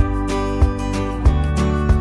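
Background music: an acoustic guitar-led track with a steady beat.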